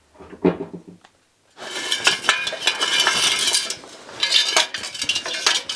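Metal hand tools clinking and rattling against each other. The clatter starts after a short pause about a second and a half in and runs as a dense stream of small knocks.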